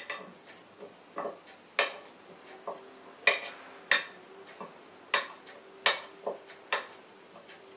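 Knife blade knocking against a glazed clay dish while cutting cubes of margarine into smaller pieces: about a dozen sharp, irregular clicks.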